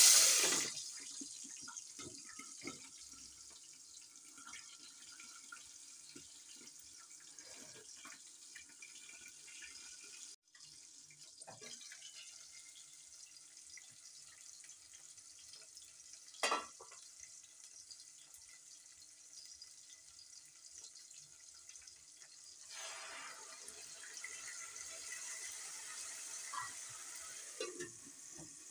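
Chopped onions dropped into hot palm oil in a pot, setting off a loud sizzle that settles into a steady frying hiss. About two-thirds of the way through the hiss swells again as blended tomato goes into the pot, with a sharp knock of utensil on pot partway and a few clinks of the lid near the end.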